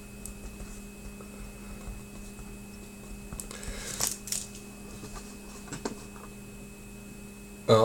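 A few light, scattered clicks and taps over a steady electrical hum.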